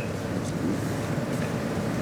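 Steady room background noise with no distinct sound events.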